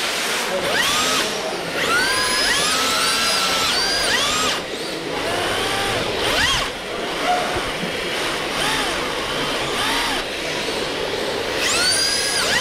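Electric motors of RC drift cars whining in repeated throttle blips, each pitch sweeping up, holding briefly and dropping away, with several cars' whines overlapping over a steady hiss.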